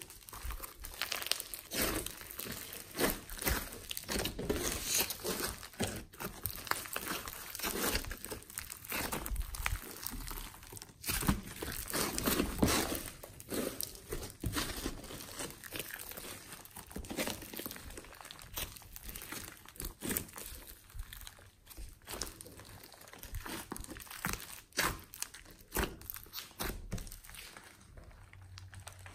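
Hands kneading, folding and stretching glossy slime mixed with clay, giving a dense run of small crackles and pops as trapped air breaks out of the slime.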